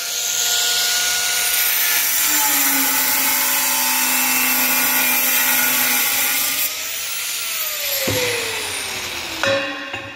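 Angle grinder with a diamond disc cutting through a 2 cm porcelain stoneware tile, a steady grinding with the motor's whine over it. About eight seconds in the cut ends and the whine falls steadily in pitch as the disc spins down, followed by a sharp knock near the end.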